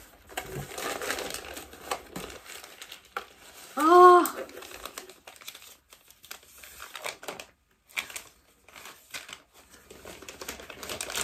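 Packaging from a camera box being handled and unwrapped: irregular crinkling and rustling with small clicks. About four seconds in, a short voiced sound from the person, rising then falling in pitch.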